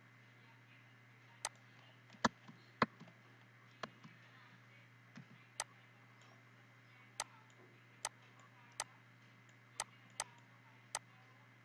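Computer mouse button clicking, about a dozen sharp clicks at irregular intervals, over a steady low hum.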